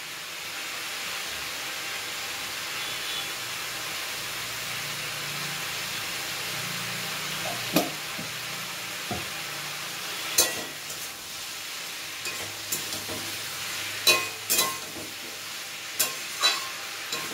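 Chopped onion and pumpkin frying in oil in a steel kadai over a turned-up gas flame: a steady sizzle. In the second half, several sharp clinks and knocks as a metal spatula stirs and strikes the pan.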